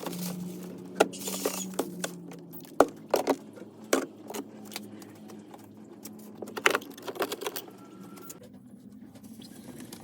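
Irregular clicks, knocks and light clatter of small hard objects being handled and set down.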